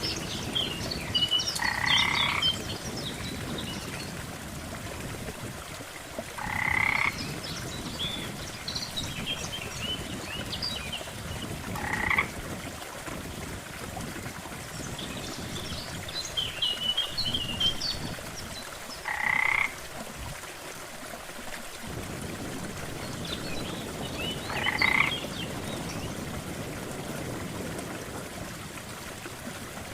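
Frogs calling by a lake: a croaking call repeats about every five seconds, with scattered higher chirps between the croaks over a steady background hiss.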